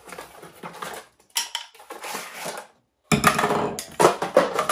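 Cardboard box and plastic packaging rustling and scraping as a Milwaukee Air-Tip vacuum accessory is pulled out. Then, from about three seconds in, the hard plastic tool clatters louder against the wooden tabletop.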